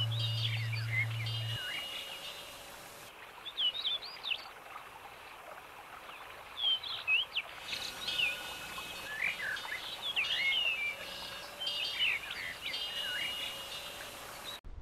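Many birds chirping and whistling in quick, varied short notes, over a light background hiss, with a low steady hum for the first second and a half. The birdsong cuts off abruptly just before the end.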